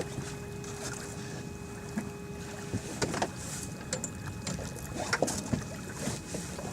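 Steady low wind-and-water noise aboard a small fishing boat, with scattered knocks and clicks from gear and a thin steady hum for the first few seconds.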